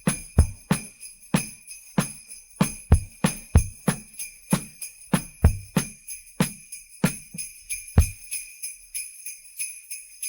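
Sleigh bells shaken in a steady rhythm over a drum-kit beat; the drums drop out about eight seconds in, leaving the sleigh bells alone. Both are isolated from the full song mix.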